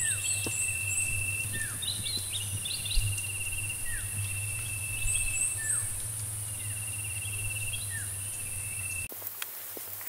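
Field ambience of insects and birds: a steady high-pitched insect drone under a rippling trill, with short falling bird calls every second or so and quick runs of three or four high chirps. The whole sound changes abruptly about nine seconds in.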